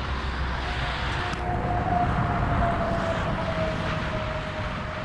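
Motorway traffic passing, with a vehicle's steady whine that swells and then slides slowly down in pitch as it goes by.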